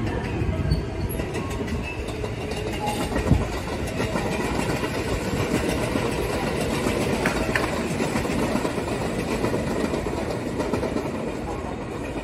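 JR West electric trains running on the tracks: a steady rumble of steel wheels on rail, with a single sharp knock about three seconds in.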